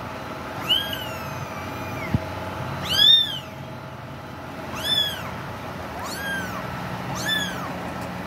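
Young kittens meowing over and over: thin, high-pitched mews that rise and fall, about five in a row, one every second or two.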